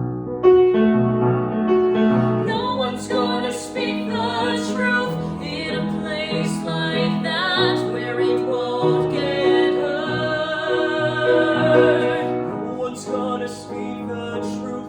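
Music: an operatic-style singing voice with vibrato over piano accompaniment, starting suddenly.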